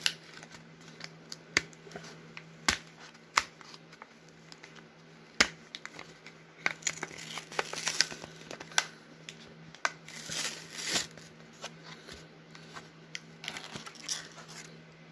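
Plastic trading card pack wrapper crinkling in the hands, with scattered sharp clicks and crackles and longer bursts of crinkling about seven and ten seconds in; near the end a pack is torn open along its seam.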